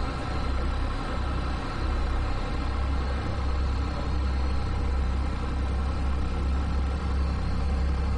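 A small towboat's engine running steadily with a low drone while it pulls a yacht on towlines.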